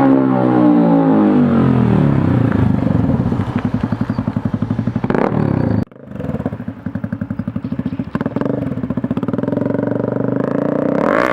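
Honda CB Twister 250F's single-cylinder engine through an aftermarket sport exhaust: revs falling off, then loud low-rpm running with even exhaust pulses. The sound cuts out briefly just past the middle, and the revs rise again near the end.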